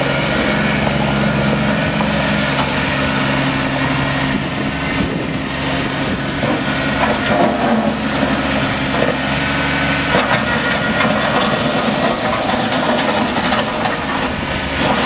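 Kubota B2410 compact tractor's three-cylinder diesel engine running steadily as the tractor drives across gravel. From about six seconds in, the engine's even tone gives way to a rougher, crackly noise, typical of tyres rolling over loose stones.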